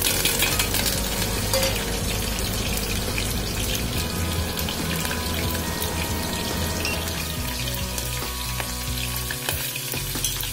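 Green chillies and curry leaves sizzling and crackling in hot oil with spluttered mustard seeds, in an aluminium pressure cooker, as they are tipped in at the start.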